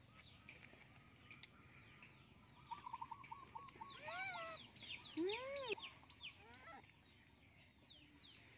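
Birds chirping: a quick run of short repeated chirps about three seconds in, then a flurry of fast downward-sweeping chirps mixed with two or three longer rising-and-falling calls, fading out near the end.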